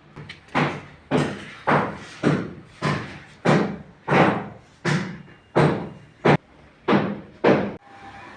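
Repeated heavy hammer blows, about thirteen at an even pace of roughly one every 0.6 s, each with a short ringing decay.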